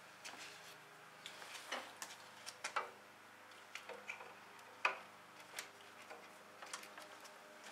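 Faint, irregular clicks and taps of an extension cord's plug being handled and pushed into the snowblower engine's electric-start socket.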